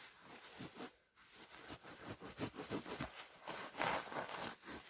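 Crunching and scuffing of boots in snow on a frozen river, a quick irregular run of soft crackles that grows a little louder after about two seconds.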